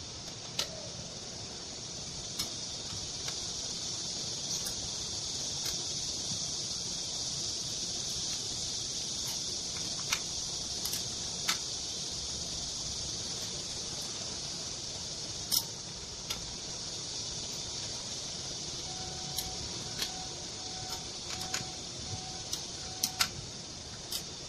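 Scattered small metal clicks and taps of hand tools on the parts of a Honda GX35 four-stroke trimmer engine being assembled, over a steady high hiss. A run of faint short beeps comes near the end.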